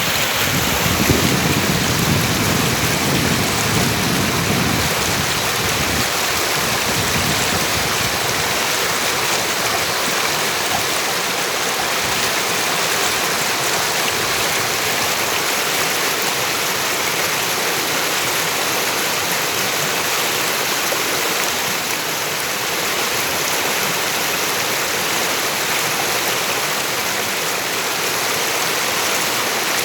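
River water flowing: a steady rushing, with a deeper rumble added for the first several seconds.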